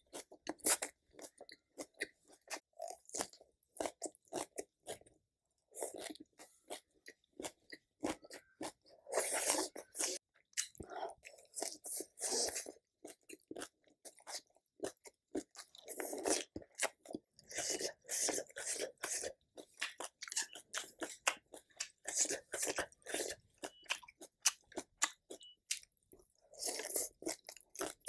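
A person eating close to the microphone: crisp crunching bites and chewing in irregular runs of sharp clicks, with brief pauses between mouthfuls.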